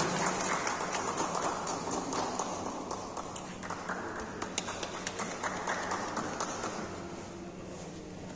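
Scattered clapping from a small audience in a hall, thinning out and fading away.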